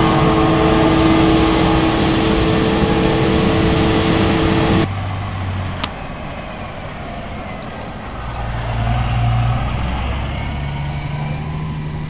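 Heavy diesel harvesting machinery running: a loud steady whine over engine noise that breaks off abruptly about five seconds in, giving way to a quieter, deeper engine that swells briefly near the middle, with a single sharp click just after the change.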